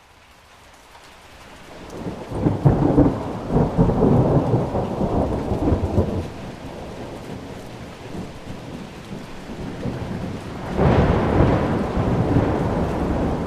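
Thunderstorm: steady heavy rain that swells up over the first two seconds, with a long roll of thunder about two seconds in lasting some four seconds, and a second thunder roll near the end.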